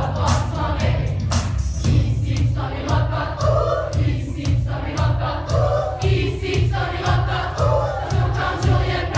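A group of voices singing a French camp song together over a loud pop dance track with a heavy, steady bass beat, played through a PA.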